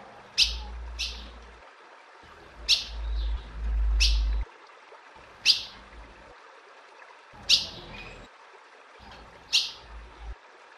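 Female ultramarine grosbeak (azulão) calling: about seven short, sharp chip notes, each falling in pitch, spaced a second or two apart. A low rumble sits under the calls in the first half.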